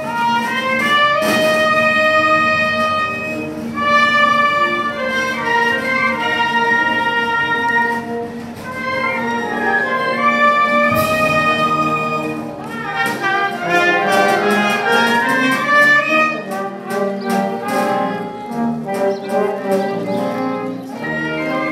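Wind band with brass playing a melody in long held notes. From about two-thirds in, quick percussive strikes join the tune.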